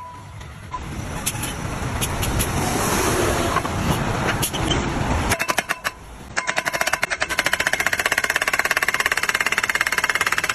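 Hydraulic guardrail post driver: its engine runs with a low rumble, then about six seconds in the hammer starts pounding a steel post in rapid, evenly spaced blows.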